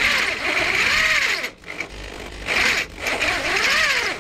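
Electric hand drill with a larger bit boring out a snapped cylinder-head bolt in a Renault F4R engine. It runs in two long stretches with a brief pause about one and a half seconds in, its pitch sagging and recovering as the bit bites.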